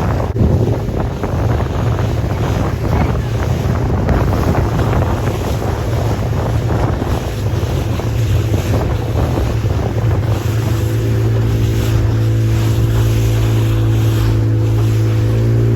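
Motorboat engine running steadily under way, with wind buffeting the microphone and water rushing past the hull. About ten seconds in the engine note becomes steadier and clearer.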